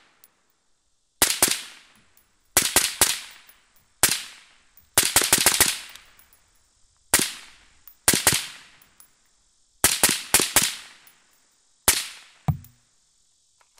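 Suppressed MK12 rifle in 5.56 with an Allen Engineering AEM5 suppressor, fired semi-automatically with 62-grain rounds. There are about fifteen sharp shots, each with a short echoing tail, in irregular groups: some in quick pairs and one fast string of four or five about five seconds in.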